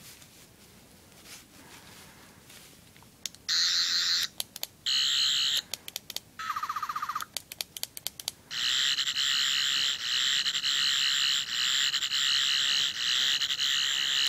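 Toy 11th Doctor sonic screwdriver playing its electronic warbling buzz from a small speaker. After a few quiet seconds it sounds in two short bursts, then a lower sweeping tone with a few clicks, then about halfway through a long unbroken buzz.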